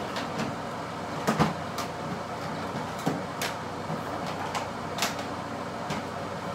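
Scattered light knocks and clicks of makeup containers being handled and set down, with a loud double knock about a second and a half in.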